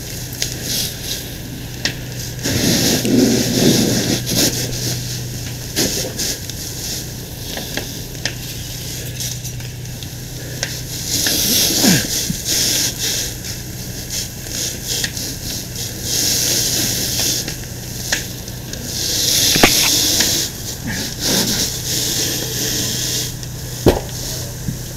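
Fire hose nozzle spraying a water stream onto burning fire, hissing in repeated surges as the water hits the flames and turns to steam, with scattered sharp pops and crackles and a steady low hum underneath.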